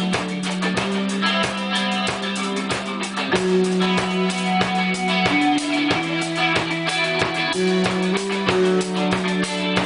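A rock band playing instrumentally: guitar over a drum kit keeping a steady beat, with sustained low notes. It is recorded live through a room microphone in a small home studio.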